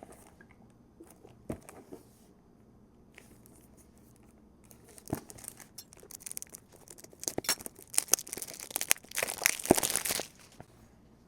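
Perfume box packaging being torn open and crinkled by hand. A few light clicks come first, then tearing and crinkling starts about five seconds in and is loudest near the end.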